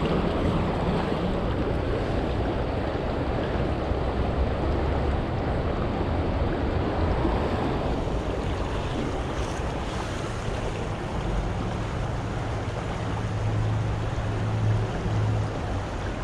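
Steady rush of a shallow mountain creek flowing over rocks, with low wind rumble on the microphone that swells near the end.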